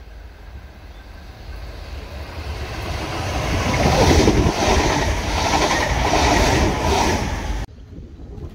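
Stainless-steel double-deck electric passenger train approaching and passing close by, growing louder, then running past with a rhythmic wheel clatter about twice a second. The sound cuts off abruptly near the end, leaving quieter wind noise.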